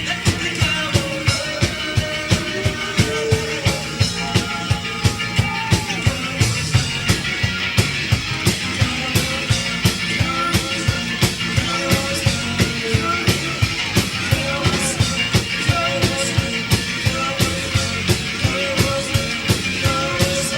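Live rock band playing at full volume: a driving drum-kit beat of about three hits a second under guitar lines. The music stops abruptly at the end.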